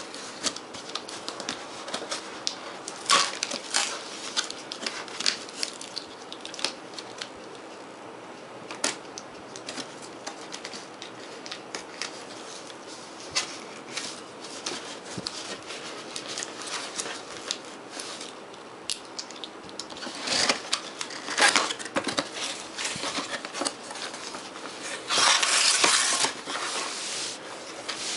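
Packing tape being peeled off a cardboard box, crackling and tearing in many short pulls. Near the end the box is opened, with a louder stretch of cardboard flaps and inner packaging scraping and rustling.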